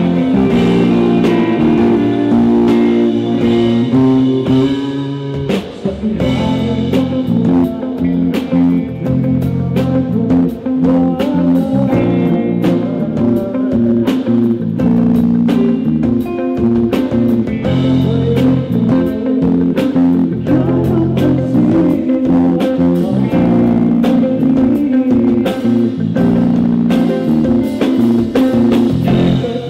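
Live band music: electric guitars over bass and a drum kit, playing steadily with a regular beat.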